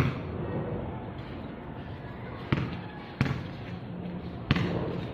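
Four sharp thumps at uneven intervals over a steady low background rumble.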